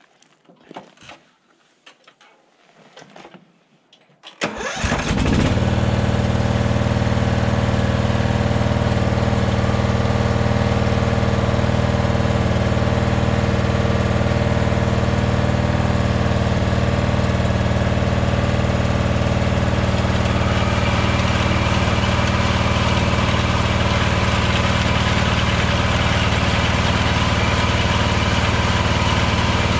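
A few faint knocks, then the Husqvarna Rider ride-on mower's engine starts about four seconds in, catching at once, and runs on steadily. About twenty seconds in its sound grows a little brighter.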